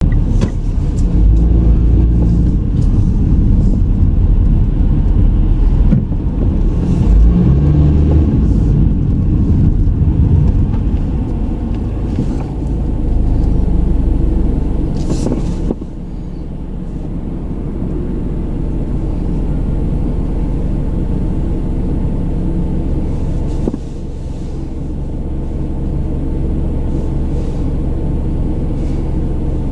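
Car being driven, heard from inside: a steady low rumble of engine and road noise. The level dips suddenly about 16 seconds in and again about 24 seconds in, then builds back up, with one short click just before the first dip.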